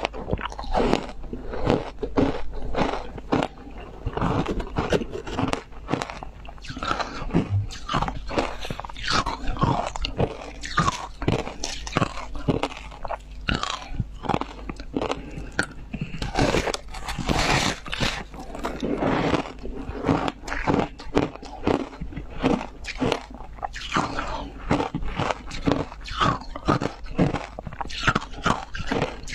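Crunching bites and chewing of a block of ice dipped in wet passion fruit pulp, a dense run of sharp crackles and crunches many times a second.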